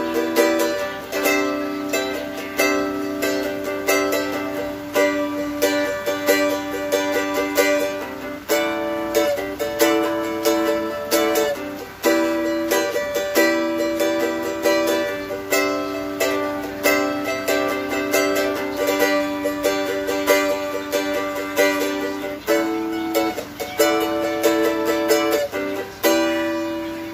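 6-string cavaquinho played solo: a run of plucked notes and chords, each note struck crisply and left ringing.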